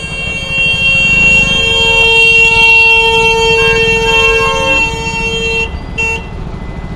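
Vehicle horns honking in stalled traffic: several long blasts of different pitches overlapping for about five seconds, then one short toot about six seconds in, over a low road rumble.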